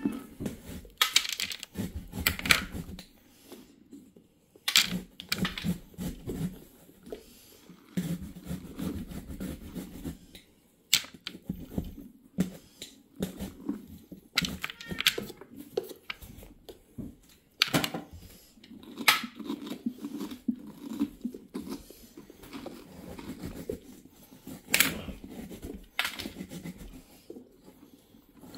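Pumpkin being hollowed out by hand: the pulp scraped and pulled loose, with scattered sharp clicks and knocks at irregular intervals.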